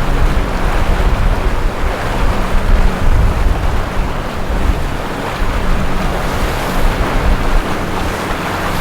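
Motorboat engines running over the wash of water, with wind buffeting the microphone.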